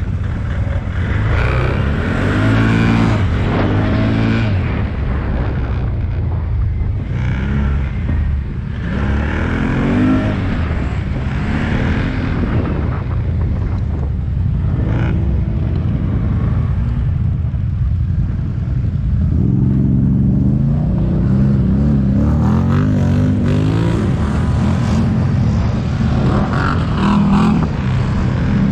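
ATV engine running under way off-road, its pitch rising and falling again and again as the throttle is opened and eased off.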